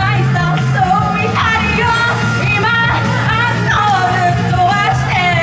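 A woman singing karaoke into a handheld microphone over a loud backing track.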